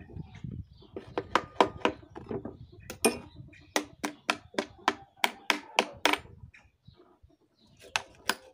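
Sharp knocks and clicks of metal brackets and wooden boards as the wooden mold inside a freshly cast cement washtub is worked loose, about three to four a second. They stop for about a second near the end, then a few more come.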